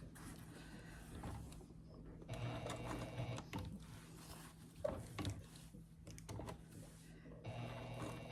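Sewing machine stitching slowly in short stop-start runs, pausing between them as the fabric is pivoted to follow a curved edge during top-stitching.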